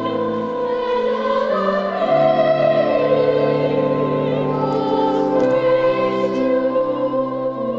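Choir singing sacred music in long held chords over steady bass notes.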